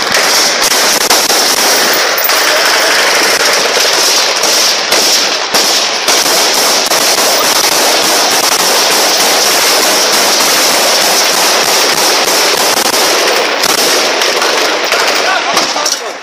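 Sustained heavy automatic gunfire, very loud, the shots so closely packed they run together into a continuous crackle.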